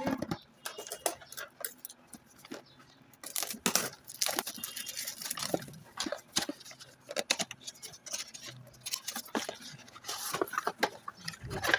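Irregular taps, clicks and rustling of packaging and plastic parts being handled while wireless earbuds are unboxed.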